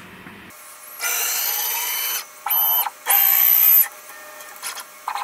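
CNC router's axis drive motors jogging the gantry and spindle head across the table: a steady high-pitched whine for about a second, then two shorter runs, each starting and stopping abruptly.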